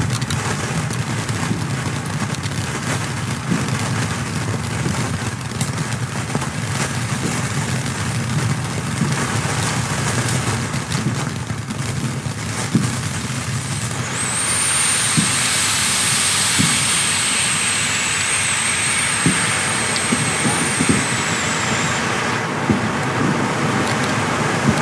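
Black Cat Medusa firework fountain burning with a steady rushing hiss and scattered crackling pops. About 14 s in it grows louder and brighter, and a high, slightly wavering whistle joins for about eight seconds.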